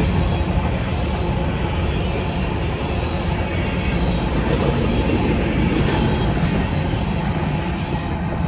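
Freight train's cars rolling past, a steady, continuous rumble of wheels on the rails.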